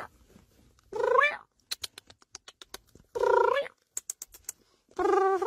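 A cat meowing three times, about two seconds apart; each call is short and rises in pitch. Faint clicks fall between the calls.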